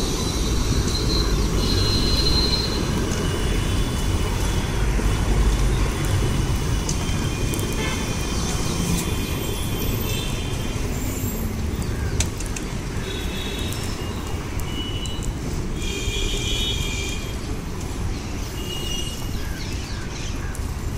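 Steady rumble of street traffic, with a few short high-pitched vehicle horn toots.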